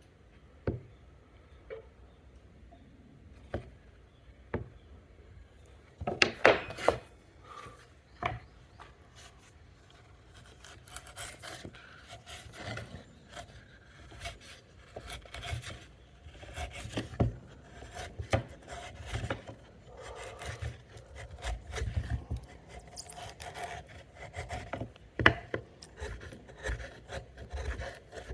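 Chisel chopping and paring out the waste wood of a T-halving joint: a few separate knocks, then from about six seconds in a busy run of scraping and shaving with many short taps.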